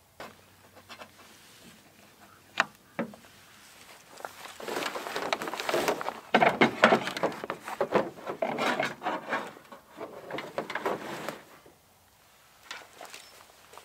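Gear being handled on a pickup truck's load bed: two sharp knocks, then several seconds of dense rustling and knocking as a solar panel and a bag are moved about, and a few light taps near the end.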